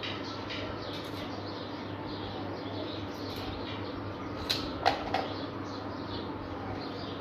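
Three sharp, light clicks in quick succession a little past halfway, from a steel measuring rule being handled and set down against the iron grill scrollwork. Under them runs a steady low hum, with birds calling in the background.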